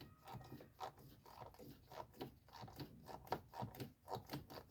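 Faint, irregular clicks and scrapes of a hand tool working out the last mounting screw of a truck's HVAC blower motor.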